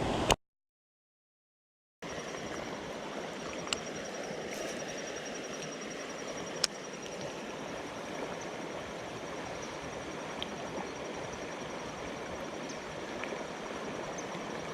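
Steady rush of flowing creek water, starting after a brief dead gap near the start, with a few faint clicks over it.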